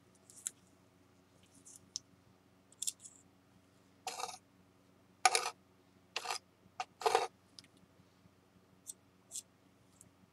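Spatula working a paste of shin urushi and flour on a smooth board. Light clicks and taps, then four louder short scraping strokes in the middle, then a few more light clicks.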